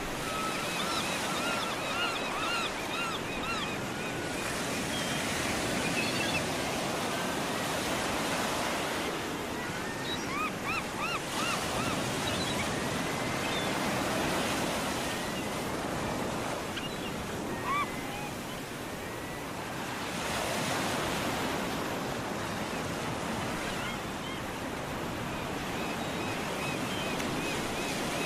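Ocean surf: waves washing in as a steady rushing sound that swells and eases every few seconds. Short repeated bird calls cut through it during the first few seconds and again about ten seconds in.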